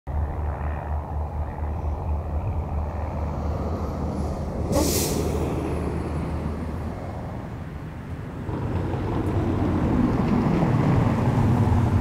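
Road traffic: a heavy vehicle's engine running with a steady low rumble, a short sharp hiss about five seconds in, then a vehicle approaching and passing, growing louder near the end.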